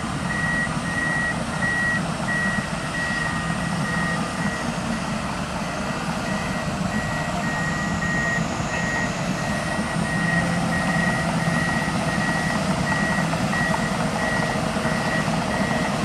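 Reversing alarm of a Komatsu D61PXi bulldozer beeping steadily in short, evenly spaced high beeps as the machine backs up. The bulldozer's diesel engine runs underneath with a steady low rumble.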